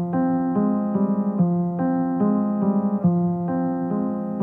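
Background piano music, a steady run of notes and chords that change about every half second.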